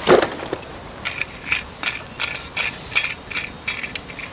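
A rustling thump as a bag is picked up, then a backpacking stove being screwed onto the threads of an MSR gas canister: a run of short metallic ratcheting clicks, about three a second.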